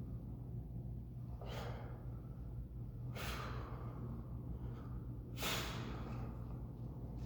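A man breathing hard through a weightlifting set: three forceful breaths about two seconds apart, over a steady low hum.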